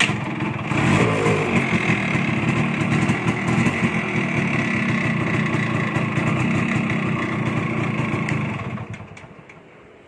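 A Yamaha RX135's two-stroke single-cylinder engine catches suddenly, picks up over the first second and runs steadily. Near the end it dies away over about a second as the newly fitted kill switch grounds the CDI and cuts the ignition.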